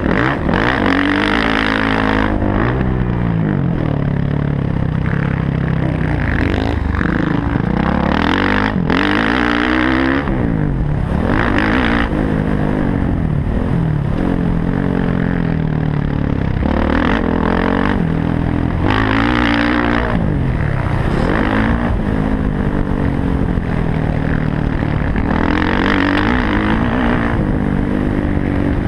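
Motocross dirt bike engine revving hard, its pitch repeatedly rising and dropping as the rider accelerates, shifts and backs off over the track, heard from a helmet-mounted camera.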